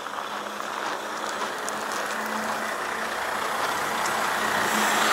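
Heavy truck engine running steadily with a constant low hum, growing slowly louder.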